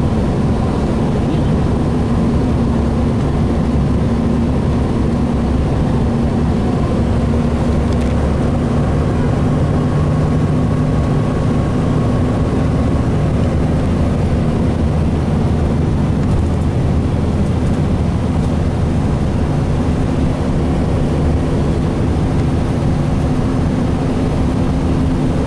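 A 2007 Gillig Phantom transit bus under way, heard from inside the cabin. Its Cummins ISL 280 straight-six diesel and Allison B400R automatic transmission give a steady drone over road noise.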